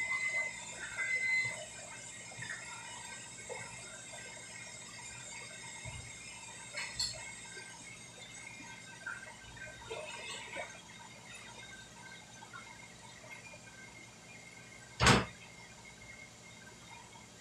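Steady commercial-kitchen background hum. A few short electronic beeps at one pitch sound in the first second and a half, light clatter comes now and then, and a single sharp knock comes about fifteen seconds in.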